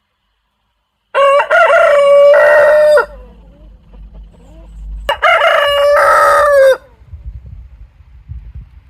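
Rooster crowing twice, each crow about two seconds long, with a pause of about two seconds between them.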